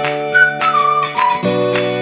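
Background music: a high melody line of short gliding notes over plucked guitar chords, the chord changing about three quarters of the way through.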